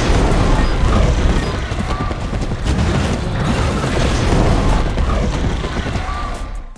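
Loud action-film sound effects mixed with music: a heavy low rumble under dense crackling and impacts, stopping abruptly near the end.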